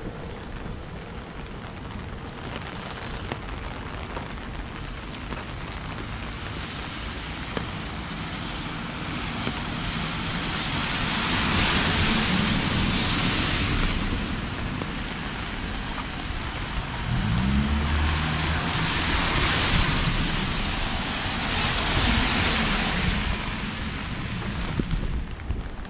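Steady rain on a city street, with vehicles passing on the wet road: the tyre hiss swells and fades three times in the second half, and an engine's low hum rises under the middle pass.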